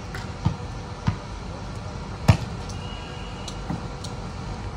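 A volleyball being struck or bounced, making several short sharp thuds over a steady low background. The loudest thud comes about two seconds in.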